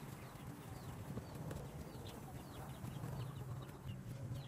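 Knife slicing tomato on a thick wooden chopping block, with a few faint taps of the blade on the wood. Birds chirp repeatedly in short falling notes over a steady low hum.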